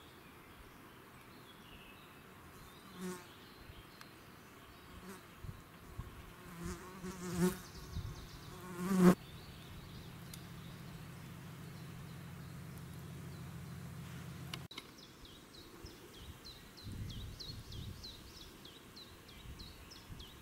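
A flying insect buzzing close to the microphone, swelling and fading as it passes several times and loudest about nine seconds in. In the second half a bird repeats short high notes.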